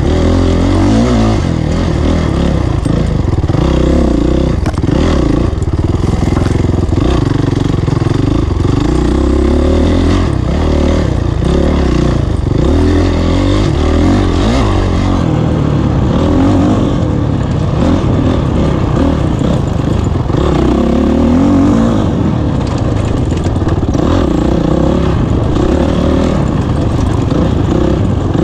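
Honda CRF450 dirt bike's single-cylinder four-stroke engine under race throttle, its revs rising and falling over and over as the rider opens and closes the throttle and shifts.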